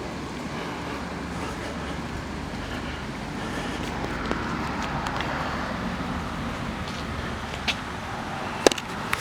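Steady street traffic noise, with a few sharp clicks near the end, one of them much louder than the rest.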